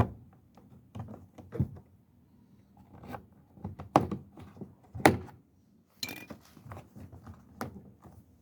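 A plastic interior door-trim piece is pried and pulled off its retaining clip, making a series of sharp plastic clicks and knocks; the loudest come about four and five seconds in.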